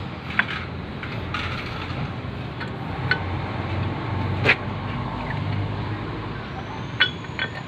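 Scattered sharp metallic clicks and clinks from brake parts and tools being fitted, over steady low background noise; the loudest click comes a little past halfway.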